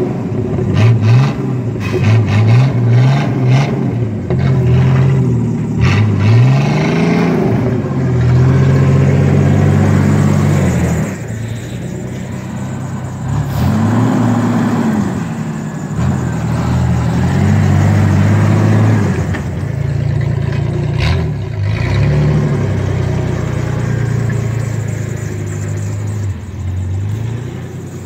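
Chevrolet S-10 pickup's engine revving up and dropping back again and again as the truck pushes snow with a plywood board strapped across its front.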